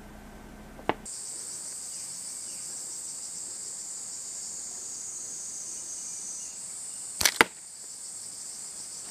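Koami scare slingshot firing a glass marble: two sharp cracks in quick succession about seven seconds in. Under it runs a steady high-pitched chorus of insects.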